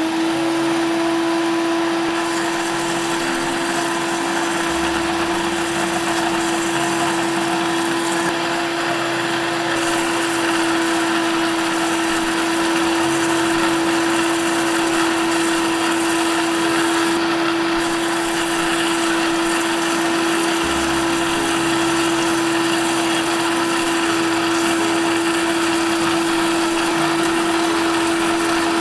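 Electric blender running steadily at speed, a constant motor whine over a steady whirring hiss, as it blends raw egg and oil into mayonnaise.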